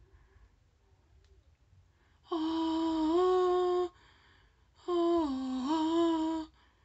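A person humming two long held notes, each shifting in pitch partway through, with a short pause between them.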